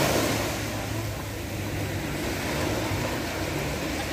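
Small sea waves breaking and washing up a sandy shore, loudest at the start as a wave runs in, over a low steady rumble.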